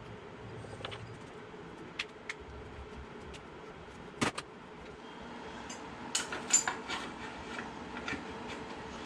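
Metal tools and engine parts clinking and knocking during disassembly of an air-cooled VW engine: a few sharp taps, one louder knock about four seconds in, and a quick run of bright metallic clinks around six to seven seconds.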